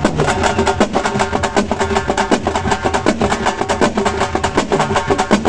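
Halgi frame drums beaten with sticks in a loud, fast rhythm of dense, rapid strokes.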